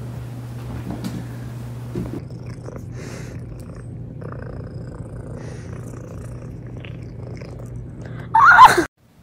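Domestic cat purring steadily close to the microphone as it rubs against a face. Near the end comes a short, loud, high cry that falls in pitch.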